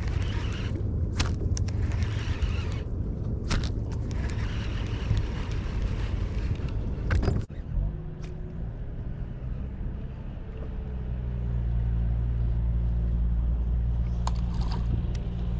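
Boat motor running with a low rumble, with a series of sharp knocks and slaps over the first half. About halfway through the sound breaks off and gives way to a steady low hum.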